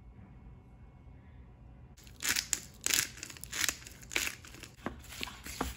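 Quiet for about two seconds, then a run of irregular crinkling, crunching strokes as salad food is handled.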